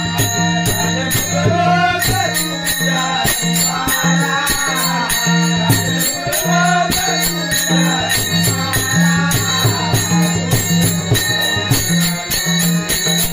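Warkari bhajan music: jingling hand cymbals keep a fast, steady beat over a repeating drum pattern, with a wavering melody line above.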